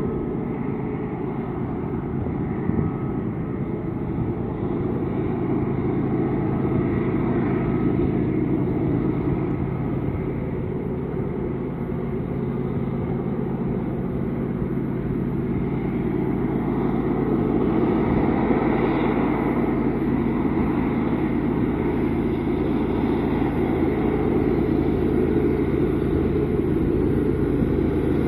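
Union Pacific diesel locomotives working hard up a grade at the head of a freight train: a steady, deep engine drone that grows louder about two-thirds of the way through.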